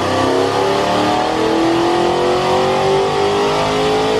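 Supercharged Ford Shelby GT500 V8 on a chassis dyno making a wide-open-throttle pull, its engine note climbing steadily and evenly in pitch as the revs build.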